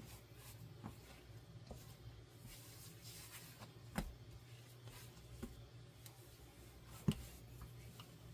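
Hands kneading sourdough bread dough on a silicone baking mat: soft, faint pressing and rubbing sounds, with two sharper knocks, one about four seconds in and one about seven seconds in.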